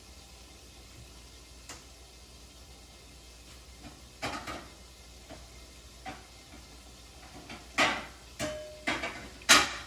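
Kitchen clatter from cupboard doors and dishes being handled: separate knocks and clacks, sparse at first and coming quicker in the last few seconds, the loudest near the end.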